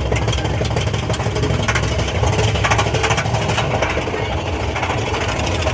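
Mine-train roller coaster running along its track: a steady heavy rumble with rapid clattering, and wind buffeting the microphone.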